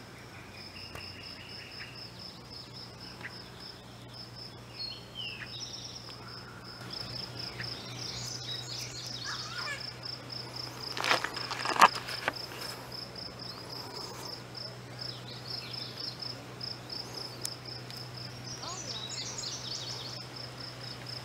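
An insect trilling, a steady rapid pulsing at one high pitch, with scattered short bird calls. About 11 to 12 seconds in, a few sharp knocks and scrapes.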